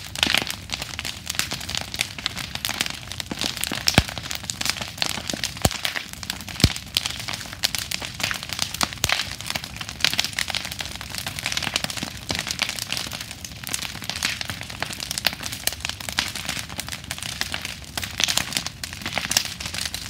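Large wood bonfire burning, crackling and popping continuously, with a few sharper loud cracks about four to seven seconds in.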